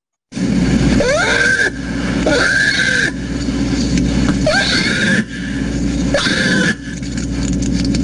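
Black bear cub bawling in distress: a string of wailing cries, each rising and falling in pitch, about one a second, over a steady low drone. It is the cry of an upset cub that may have been separated from its mother.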